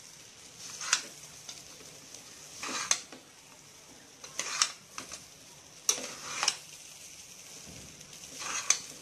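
Metal spatula scraping and knocking against a steel pot as fried rice is tossed, five strokes about every one and a half to two seconds with sharp clicks, over a faint steady sizzle.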